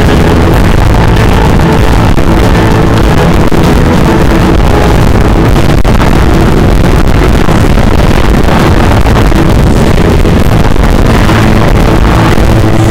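Live rock band playing very loud, picked up by an overloaded camera microphone, so the music is clipped and distorted into a dense, even noise throughout.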